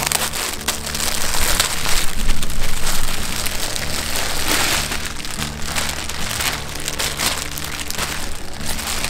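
Clear plastic packaging crinkling and rustling continuously as hands pull a T-shirt out of its bag, loudest about two to three seconds in and again past the middle.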